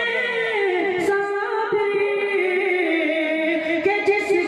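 A man singing a ghazal verse in a slow melodic style into a microphone, holding long wavering notes that glide slowly downward and lift again near the end.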